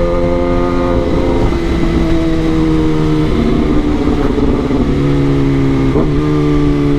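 Kawasaki ZX-10R's inline-four engine running under way, heard from the bike, its note holding and then dropping in pitch a few times, over steady wind and road rumble.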